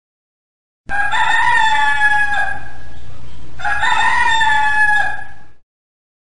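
Rooster crowing twice, two long cock-a-doodle-doo calls starting about a second in, over a steady background hiss.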